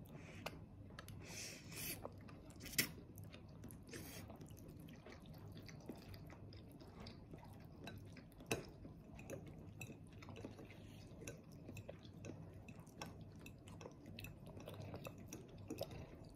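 Faint sounds of a toddler chewing spaghetti bolognese, with small clicks and taps of a fork and fingers on plastic and ceramic dishes; two sharper clicks stand out, about three seconds in and about eight and a half seconds in. A low steady room hum runs underneath.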